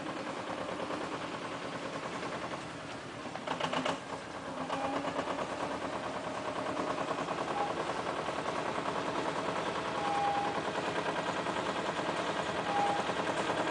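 Mini dumper's engine running with a rapid, even chugging as the machine drives across grass, growing louder as it comes closer.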